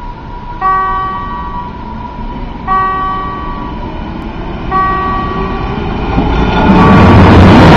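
Level-crossing warning bell striking about every two seconds, each ringing strike dying away. Near the end the noise of a Berlin S-Bahn class 481 electric train rises loud as it runs onto the crossing.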